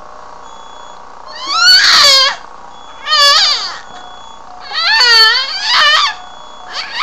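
A baby squealing: five high-pitched shrieks of about a second or less each, their pitch sliding up and down, with short pauses between.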